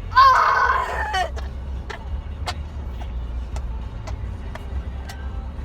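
Steady low road rumble inside a moving car, with a brief loud vocal squeal near the start and sharp clicks about twice a second after it.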